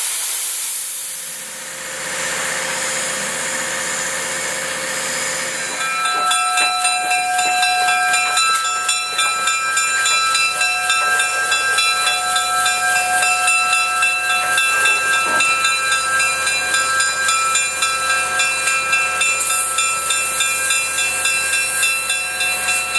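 2-8-0 steam locomotive hissing steam. From about six seconds in, a ringing of several steady high tones with a quick pulsing beat joins in as the engine moves off.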